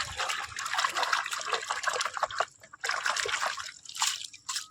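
Water trickling and splashing in uneven bursts as a toy sports bike is washed, with brief breaks about halfway and near the end.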